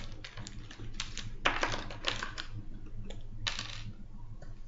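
Sheets of paper being handled at a desk: an irregular string of short rustles and taps, fading near the end.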